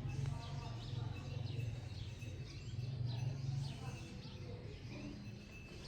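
Small birds chirping repeatedly in quick, short calls over a low steady hum.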